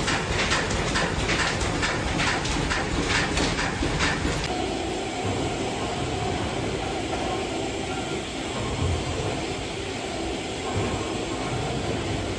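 Steam machinery running: a fast, regular clicking, about three a second, over a steady mechanical noise for the first few seconds. Then the clicking stops and the steady rumble of a Victorian steam beam engine running takes over.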